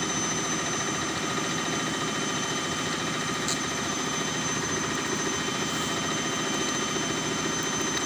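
Steady mechanical drone with a thin high whine running on unchanged, and a single light click about three and a half seconds in.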